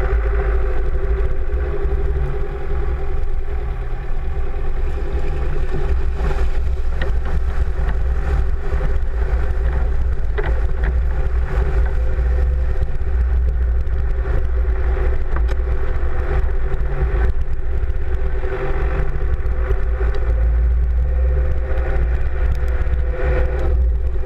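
Four-wheel-drive vehicle's engine running steadily at low speed, heard close to the front wheel with a heavy low rumble, as its off-road tyre rolls over a dirt track, with a few light knocks from twigs and stones.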